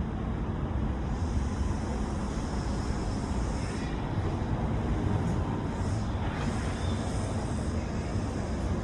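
Boat engine running steadily with a low rumble, under a constant rushing noise.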